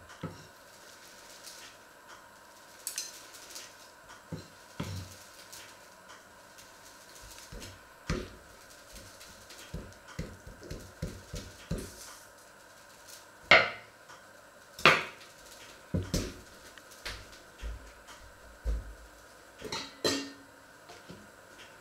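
Metal tongs and a carving fork knocking and scraping against a wooden cutting board as a piece of meat is turned and handled: scattered knocks and clicks, the loudest two about halfway through, with a few more as the utensils are set down near the end.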